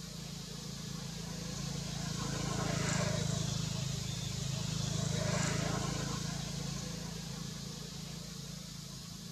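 A motor vehicle passing by over a steady low hum, its sound swelling to a peak about three seconds in, staying up for a few seconds and fading away near the end.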